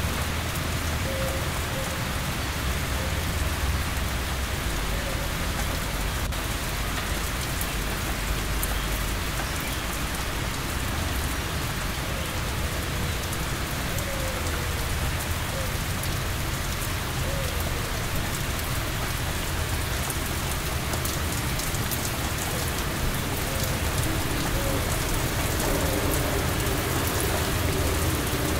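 Steady heavy rain pattering on surfaces, with a low rumble underneath that fades after about ten seconds.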